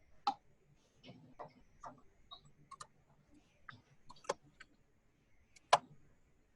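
Butter knife tapping and scraping at ice clogging a refrigerator's freezer drain hole, breaking it up: faint, irregular clicks and ticks, with sharper ones just after the start, past four seconds and near the end.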